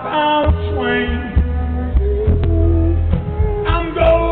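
Live rock band playing with a man singing lead over strong bass.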